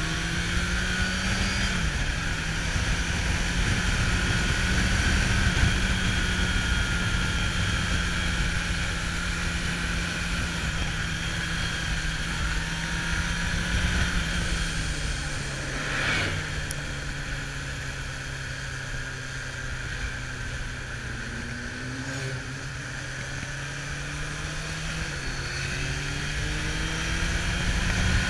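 Kawasaki Zephyr 750's air-cooled inline-four engine running on the move, heard from the rider's seat with wind rushing over the microphone. Its steady note steps down in pitch a few times and back up near the end as gears change.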